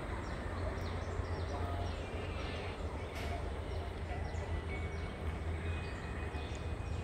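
Railway platform ambience: a steady low rumble, scattered bird chirps and faint distant voices.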